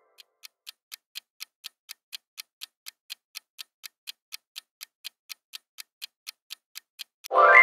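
Quiz countdown timer sound effect: clock-like ticks, about four a second, marking the time left to answer. Near the end a louder ringing sound effect cuts in, signalling the answer reveal.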